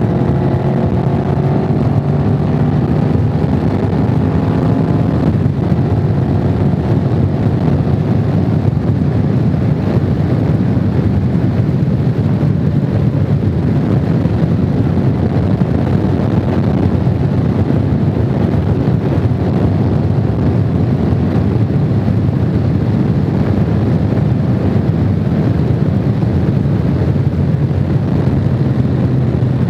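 Honda VFR750 motorcycle's V4 engine running at road speed under a heavy rush of wind. The engine note rises slightly and stands out in the first few seconds, then the wind rush mostly covers it.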